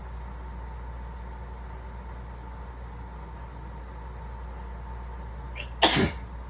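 One loud sneeze from a person with a cold, just under six seconds in, preceded by a brief intake of breath, over a steady low background hum.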